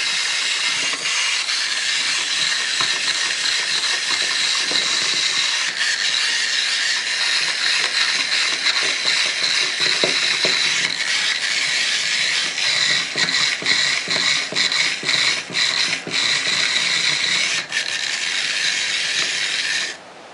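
A steady, high hiss with a faint crackle. In the second half it breaks up into many short gaps, and it stops just before the end.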